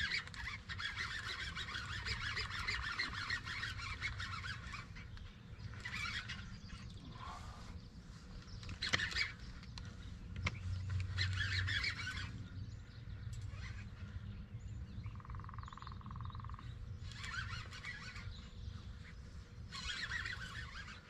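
Fishing reel buzzing in repeated bursts of one to three seconds as a hooked fish pulls line against the drag and is reeled in on a heavily bent rod.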